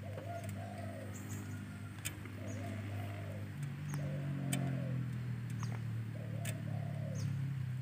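Spotted dove cooing: four short, low coo phrases, one every second and a half to two seconds. A low steady hum runs underneath, and a few brief high chirps of small birds come in between.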